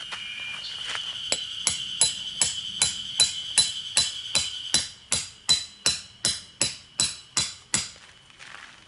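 Tent pegs being driven into the ground with a hammer: a quick, even run of sharp strikes, nearly three a second, starting about a second in and stopping near the end.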